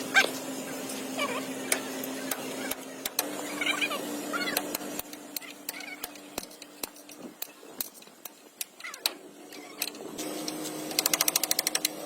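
Metalworking shop sounds: a steady machine hum with scattered sharp metal taps and clicks, and some short high chirps. Near the end a power tool starts a fast, even hammering of about a dozen strokes a second.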